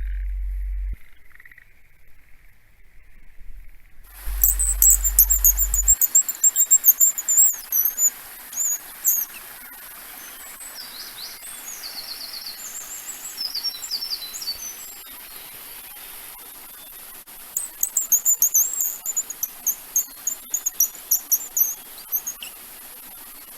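Handheld bird call squeaked in quick runs of short, high chirps imitating birdsong, starting about four seconds in and again in the second half, with softer chirps in between. A steady high hiss lies under it all.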